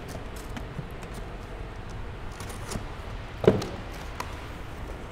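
Handling noises of small blue anodized metal parts being moved and set down on a cloth-covered table: light scattered clicks and taps, with one louder knock about three and a half seconds in.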